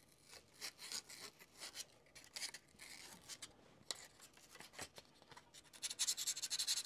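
Sandpaper scratching against the bare tip end of a fishing rod blank: scattered strokes, then quick, steady back-and-forth sanding in the last second, taking old glue off the blank.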